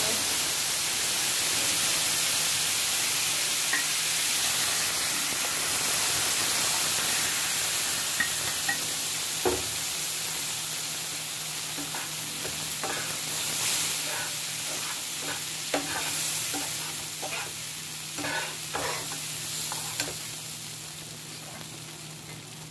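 Boiled lentils poured into a pan of hot ghee tempering with dried red chilies, sizzling loudly at first, the sizzle slowly dying down as the dal is stirred. A metal spatula scrapes and taps the nonstick pan now and then from about a third of the way in.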